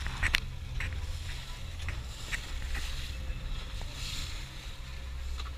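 Twin outboard motors running steadily as a low drone, with water rushing and splashing in the boat's wake and wind on the microphone.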